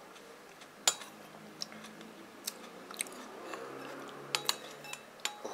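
A person chewing a mouthful of food, with a few sharp clicks scattered through.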